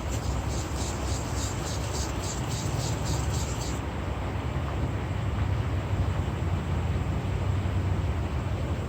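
Plane iron being honed by hand on a sharpening stone: quick rhythmic rubbing strokes, about three or four a second, that stop a little under four seconds in. A steady low rumble runs underneath.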